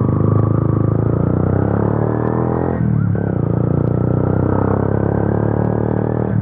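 Yamaha FZ V2's single-cylinder engine running through an Akrapovic exhaust with the dB killer removed, a loud, steady exhaust note with a brief dip about three seconds in.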